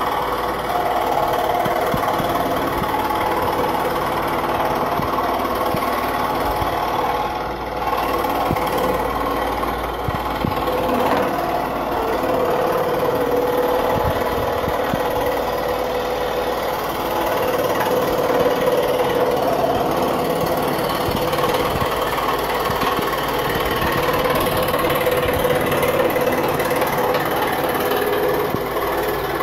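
Electric scroll saw running steadily, its blade moving up and down through a wooden puzzle blank as the pieces are cut out.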